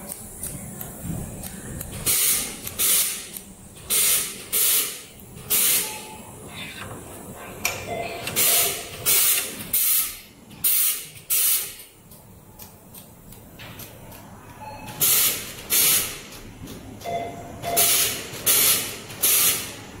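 Fiber laser welding machine firing short weld shots: about fifteen brief hisses in groups of two or three, with pauses between the groups, over the steady hum of the machine and its chiller.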